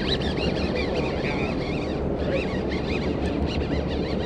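Fishing boat's engine running steadily under wind buffeting the microphone and the wash of open-ocean chop, with many short high-pitched chirps over it.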